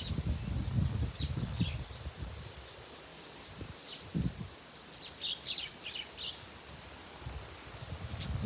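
Small birds chirping in short, high calls, with a cluster of chirps in the middle, over gusts of wind buffeting the microphone that are loudest at the start and again near the end.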